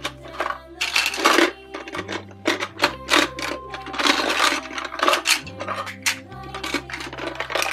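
Small hard plastic toy fish clattering and knocking against the clear plastic shell of a toy fishbowl as it is tipped and shaken to empty them out, in irregular bursts of clicks. Background music with a steady bass line plays underneath.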